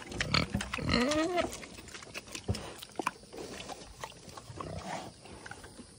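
A pig's wavering call, rising and falling in pitch, in the first second and a half, then quieter with a few scattered clicks.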